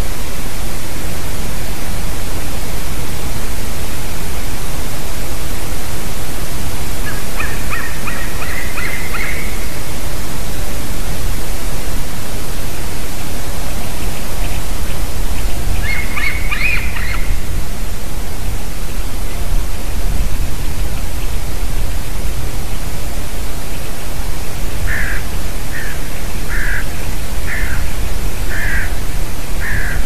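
A steady loud hiss, with three bouts of animal calls: a short run a quarter of the way in, a harsh burst about halfway, and a series of seven evenly spaced calls, a little under a second apart, near the end.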